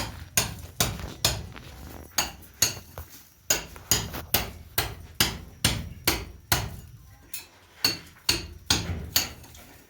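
A hammer striking over and over in a steady rhythm, about two to three blows a second.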